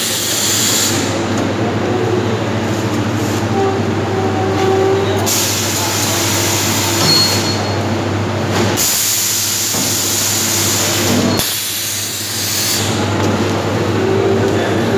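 Box shrink-wrapping machine running: a steady hum from its conveyor and shrink tunnel, with a hiss that cuts in and out every few seconds.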